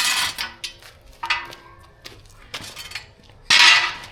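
Steel jack stand being adjusted: metal clinks and clacks as its handle is lifted and the ratchet bar is moved, with a short rasp of metal sliding about a second in and a louder one near the end.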